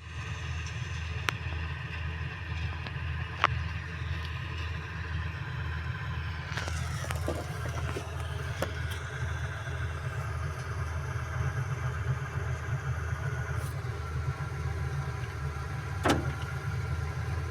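John Deere combine harvester running steadily, its engine giving a deep, even rumble with a few sharp clicks or knocks from the machinery.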